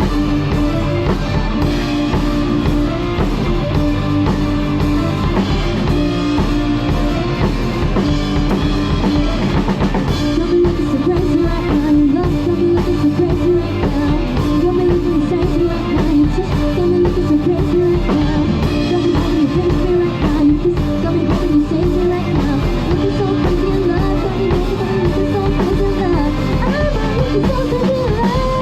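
A live rock band playing a fast pop cover, with drum kit, electric guitar and bass, and a singer's voice over it.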